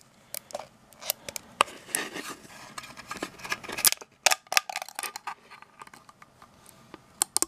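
3D-printed plastic support structure cracking and snapping as it is pushed out of a freshly printed part by hand, with fingers rubbing on the plastic. The snaps are irregular, with a cluster of louder ones about four seconds in and two sharp ones near the end.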